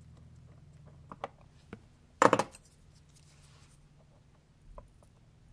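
Small sharp clicks and taps of a watchmaker's tools working on a mechanical watch movement, with one much louder short clack about two seconds in.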